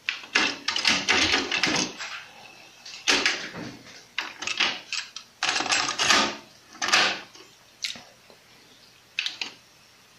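A string of plastic clicks and clunks from a Sony TC-WR545 dual cassette deck being handled: deck A's cassette door is opened, a cassette is loaded and the door pushed shut, and a front-panel transport button is pressed near the end.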